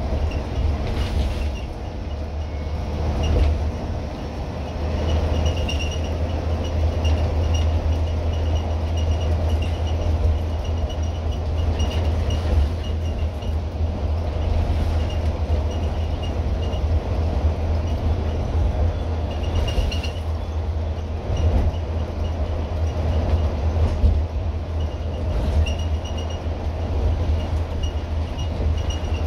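Scania N230UD double-decker bus on the move, heard from inside the upper deck: a steady low engine drone with road noise, and a faint high-pitched squeak now and then.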